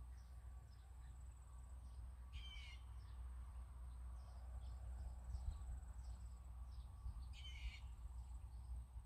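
Birds calling outdoors: one bird gives a call twice, about five seconds apart, among faint scattered chirps, over a low steady rumble.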